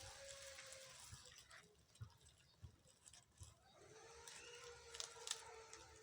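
Newborn kitten crying faintly in two long, drawn-out mews, the second starting about four seconds in. Soft clicks and rustles of handling come between them.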